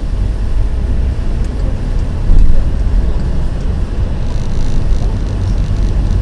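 Car engine and road noise heard from inside the cabin, a steady low rumble as the car picks up speed from a crawl, with a brief louder bump about two and a half seconds in.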